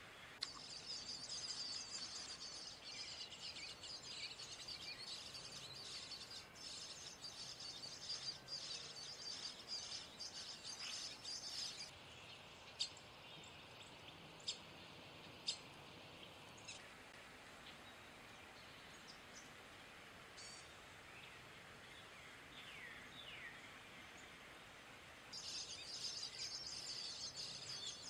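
European starling nestlings begging from the nest cavity: a dense, harsh, high-pitched chatter through roughly the first twelve seconds, which starts again a few seconds before the end. In the quieter stretch between there are a few sharp clicks and some short sliding whistles.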